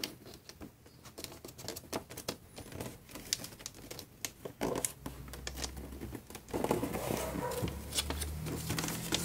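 A sheet of 15 cm origami paper being folded and creased by hand on a table: soft paper rustling with scattered light clicks and scrapes of fingers pressing the folds flat, growing busier about two-thirds of the way through.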